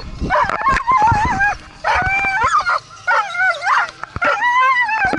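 Sled dogs yelping and howling: a string of high, wavering calls, one after another.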